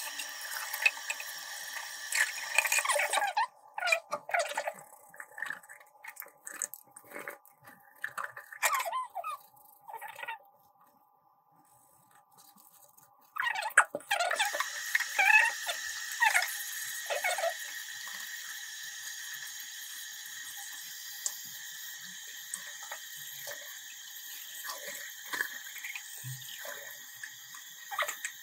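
Tap water running into a sink from a faucet-mounted filter, with squeaky rubbing as a Deerma portable blender's plastic bottle is scrubbed with a mesh scrubber. The water stops for a few seconds about ten seconds in, then runs steadily again to the end.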